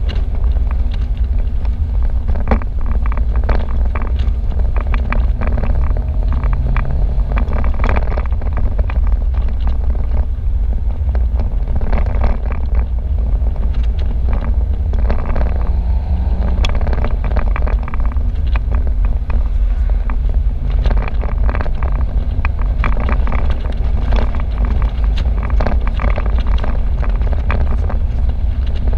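Wind rushing over the microphone in an open-top convertible driving at road speed: a loud, steady low rumble, with the car's engine and tyre noise beneath.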